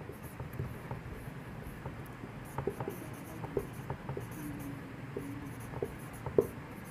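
Whiteboard marker writing on a whiteboard: faint scratchy strokes and light irregular taps of the tip as letters are formed.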